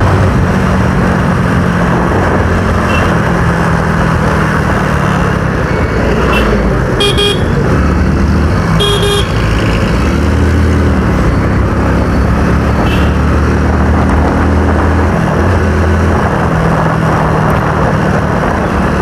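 Motorcycle engine running under way, its pitch stepping up and down with throttle and gear changes, over a steady rush of wind and road noise. A vehicle horn beeps briefly twice in quick succession near the middle, with fainter beeps elsewhere in the traffic.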